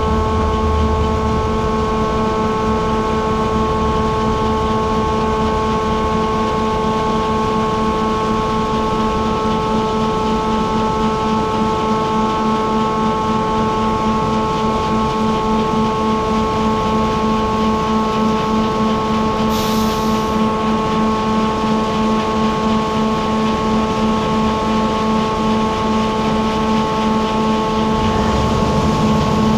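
Heavy farm machinery running steadily: a constant drone with several steady tones. A short hiss cuts in about twenty seconds in.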